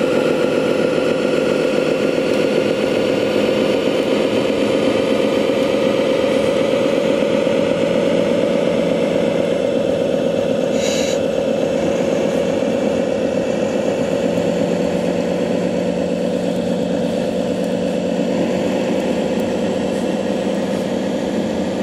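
RC model MAN truck driving slowly with a steady engine-like drone. A lower hum joins about two-thirds of the way through, and there is a short high ring about halfway.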